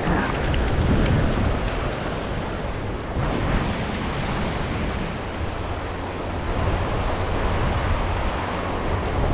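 Small surf waves washing up a sandy beach, with wind rumbling on the microphone.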